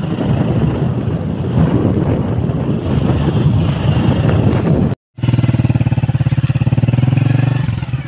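A small engine running steadily. The sound breaks off for an instant about five seconds in, then the engine carries on with a steady, evenly pulsing note.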